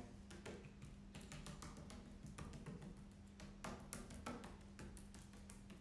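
Faint, irregular taps and scratches of a paintbrush working thick chalk paint onto a table top in short dabbing strokes to leave a textured finish, over a faint steady hum.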